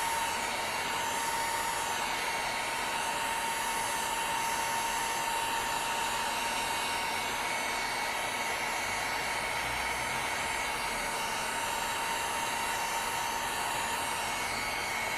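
Hot-air heat blower on its low setting, running steadily: an even rush of air with a thin whine, heating a phone's display to soften its adhesive before it is pried off.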